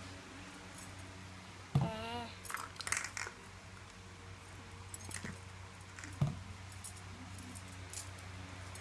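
Scattered small clicks and knocks of plastic toys and a plastic bottle being handled, over a steady low hum. A brief wavering tone comes about two seconds in, and the sharpest knock comes a little after six seconds.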